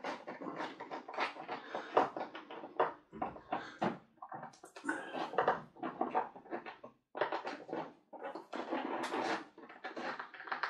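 Pruning shears working on the thin branches of a Japanese maple, a rapid, irregular run of clicks, snips and scratchy handling sounds.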